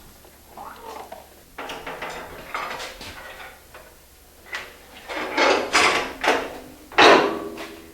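Sheet copper being worked while folding the edges of a copper roofing pan: a series of sliding, scraping strokes that come closer together and louder in the second half, the loudest about seven seconds in.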